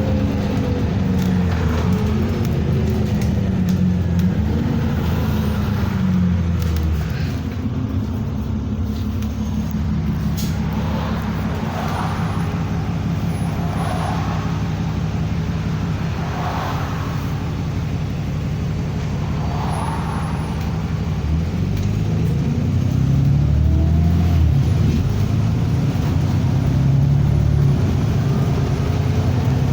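A loud vehicle engine running throughout. Its pitch falls over the first few seconds, holds steadier through the middle, and rises again from about twenty seconds in as the engine speeds up.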